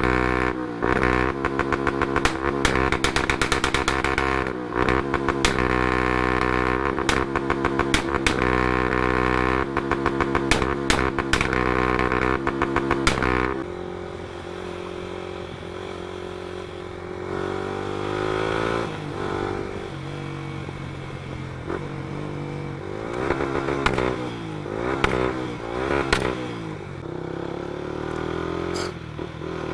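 Yamaha Sniper 155R single-cylinder engine through an Espada aftermarket exhaust, held at high revs for about thirteen seconds with rapid cracking pops from the pipe, the backfire programmed in by a PitsBike ECU tune. It then drops to idle, with several short throttle blips and a few more pops.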